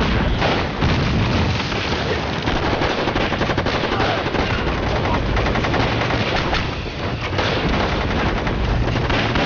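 Dense battle gunfire: rapid machine-gun bursts and rifle shots with no let-up, with explosions going off.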